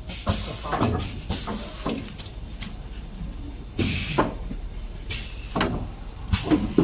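Kitchen towel roll bagging machine at work: irregular clunks and knocks, a short burst of air hiss about four seconds in, and a plastic bag rustling as it is handled at the bagging chute.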